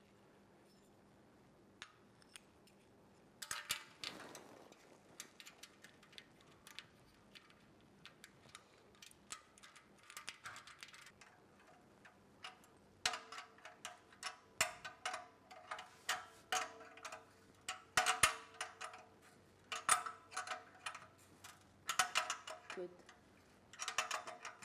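Small open-end wrench clicking and clinking against steel nuts and the stainless hinge bracket as the damper's mounting nuts are tightened on a kamado grill's band. Scattered ticks at first, becoming a busier run of metallic clinks with a little ringing in the second half.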